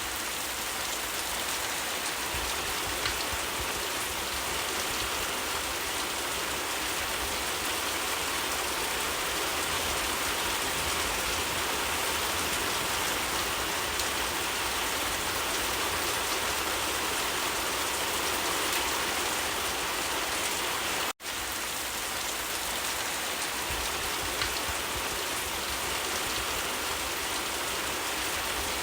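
Steady, gentle rain falling on leaves, a dense even patter, cutting out for an instant about two-thirds of the way through.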